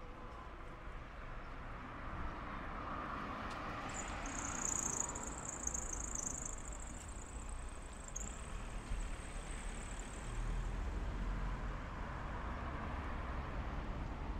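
Street traffic, with cars passing. A high-pitched hiss comes in about four seconds in and stops about six seconds later.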